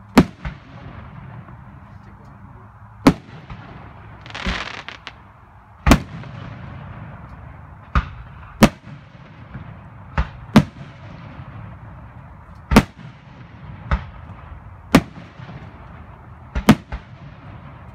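Aerial firework shells bursting overhead: about a dozen sharp booms, irregularly spaced a second or two apart, some in quick pairs.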